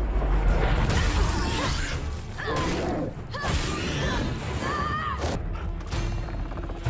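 Film soundtrack mix: tense music under clicking, rattling mechanical sound effects, with high wavering cries rising and falling in pitch in the middle.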